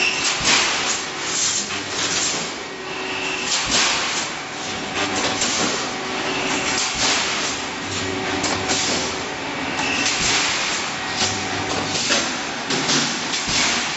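Rebar mesh welding machine running: a steady mechanical clatter with repeated sharp knocks, and a low hum that swells about every two seconds.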